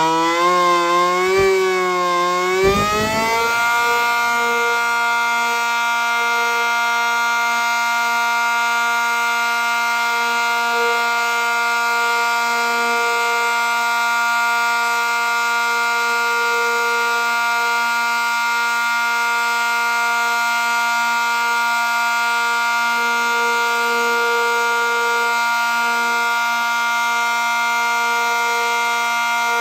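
ACA Cyclone 125 warning siren sounding. For the first few seconds its pitch wavers up and down about twice a second; then it glides up and holds one steady tone.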